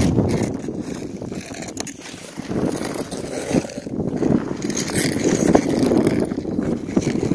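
Ice skate blades gliding and scraping over rough lake ice, swelling and fading stroke by stroke, with wind rumbling on the microphone.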